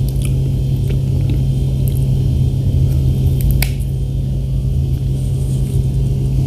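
Steady low hum under a few small crisp snaps as the green tops of strawberries are pulled off by hand, the sharpest about three and a half seconds in.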